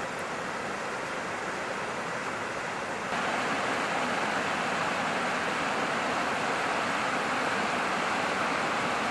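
Rushing water of a river current, a steady hiss that abruptly steps up louder about three seconds in.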